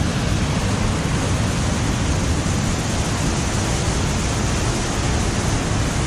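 Waterfall and rapids on a river in full flow: a loud, steady, even rush of water.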